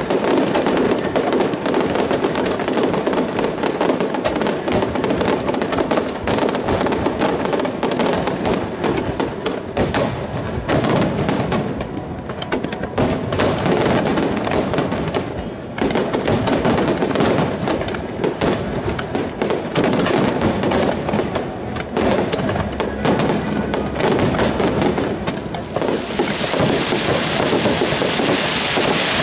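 Aerial fireworks bursting in rapid, overlapping bangs, turning into a dense sizzling crackle near the end as crackling gold shells open.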